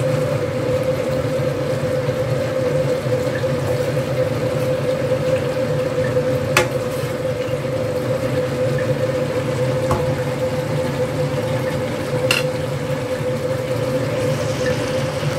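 Chicken curry simmering in a wok over a steady hum with one constant tone. A wooden spatula stirs the pieces and knocks sharply against the pan a couple of times.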